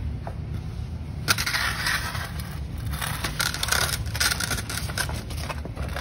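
Cardboard scraping and crackling as a long cardboard tube is pushed across flattened cardboard sheets on a concrete floor. A steady low rumble runs underneath, and the crackles grow dense about a second in.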